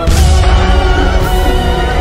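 Soundtrack music with steady held notes. A heavy low bass comes in sharply at the start and eases after about a second.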